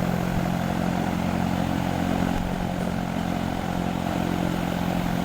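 A steady motor drone, running evenly with a constant low hum.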